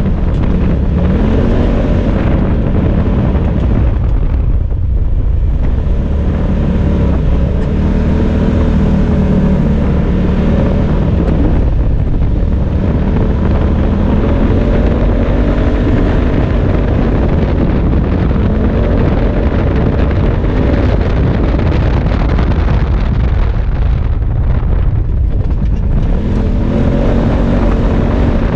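Side-by-side UTV engine under throttle on a dirt track, its note rising and falling as it accelerates and eases off, backing off briefly three times. Heavy wind buffeting on the microphone adds a low rumble throughout.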